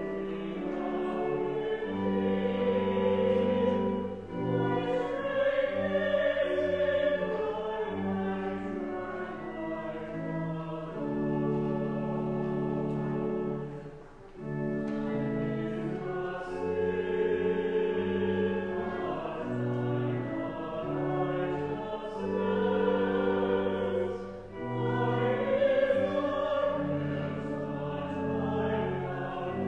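A choir singing slow, sustained chords, in long phrases with a brief breath between them about every ten seconds.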